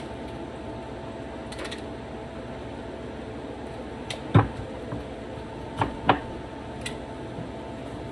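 A kitchen knife knocking on a wooden cutting board while cutting squash: a single sharp knock about four seconds in, the loudest sound, then two quick knocks close together around six seconds. A steady kitchen hum runs underneath.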